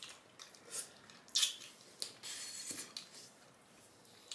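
Close-miked eating sounds of stewed fish: a few short wet smacks of lips and fingers, and a longer sucking sound about two seconds in as meat is pulled off the bones.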